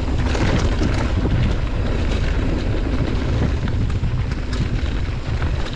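Wind rumbling on the microphone of a mountain bike rolling fast down a trail, with scattered rattles and clicks from the bike and tyres over the rough ground.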